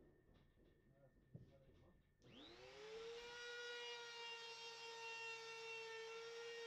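Compact trim router handled with a few light knocks and a thump, then switched on about two seconds in: its motor whine rises quickly and settles into a steady high pitch.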